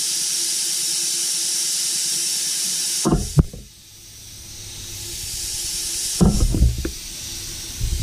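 A steady high hiss of compressed air escaping from the diaphone fog horn's air system cuts off about three seconds in with a couple of knocks. A rushing noise then swells back up, and low thumps come in near the end.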